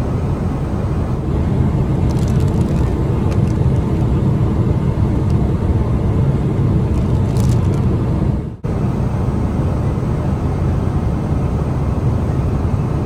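Steady cabin noise of a Boeing 777-300ER in flight: a deep, even rumble of airflow and engines. A few faint crinkles of a plastic headset bag being handled sit on top of it, and the noise drops out for an instant about two-thirds of the way in.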